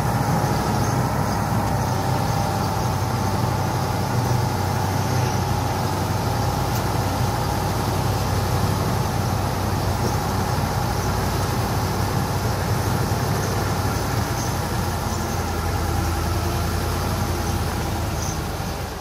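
Mercedes-Benz heavy truck diesel engine running steadily as the truck drives close by.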